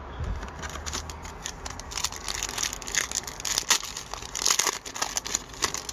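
Foil wrapper of a 2017-18 Upper Deck Series 1 hockey card pack being torn open and crinkled in the hands, a run of crackling and ripping.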